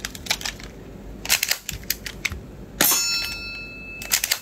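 Metal toy M1911 pistol being worked by hand: a run of light mechanical clicks, then about three seconds in a sharp metal clack that rings on for about a second, and a few more clicks near the end.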